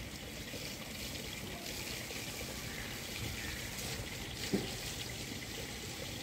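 Water pouring and trickling steadily as an elephant is bathed, with one short knock about four and a half seconds in.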